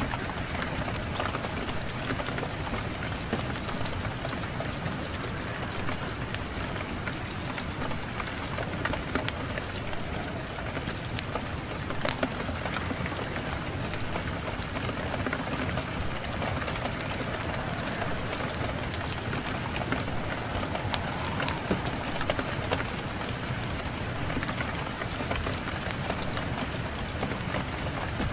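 Fireplace fire crackling with scattered sharp pops, over a steady rushing wind.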